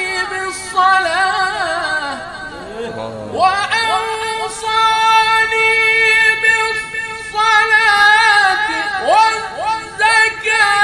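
A man reciting the Quran unaccompanied in a melodic, ornamented style. He pauses briefly about two seconds in, then holds one long high note for about four seconds before going on with more ornamented runs and upward swoops.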